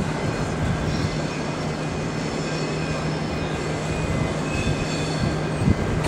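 V/Line VLocity diesel multiple unit running into the station: a steady low diesel drone with faint high whining tones over it.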